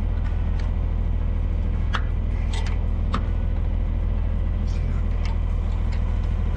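A tractor engine idling, a steady low rumble, with a few scattered clicks and knocks.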